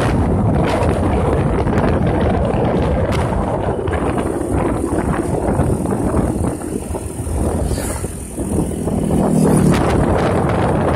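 Wind buffeting the microphone of a moving motorcycle, mixed with its engine and road noise. A short steady low tone comes in about eight and a half seconds in, lasting about a second.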